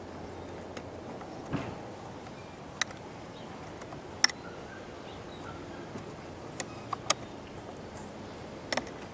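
A handful of short, sharp clicks and taps of small metal and plastic fittings being handled while a snowboard carrier clamp is mounted on a roof rack bar, the loudest about four seconds in, over steady background noise.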